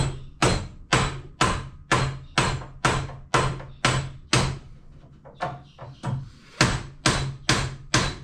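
Hammer blows tapping the HBM 45 milling machine's spindle down out of its housing to remove it: steady sharp strikes about two a second, each with a short metallic ring. There is a brief pause just after the middle with a few lighter taps before the steady blows resume.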